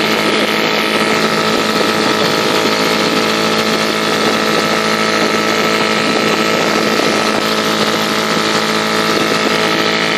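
British Seagull Century outboard, a single-cylinder two-stroke, running steadily at a constant speed, pushing a dinghy along.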